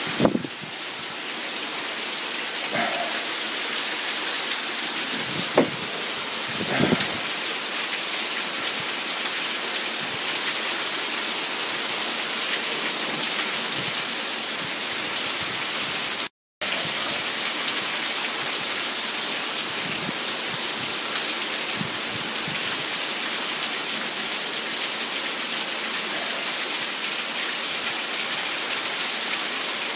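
Heavy rain pouring down, a dense and even hiss, with a few short thumps in the first seven seconds. The sound cuts out for a moment about halfway through.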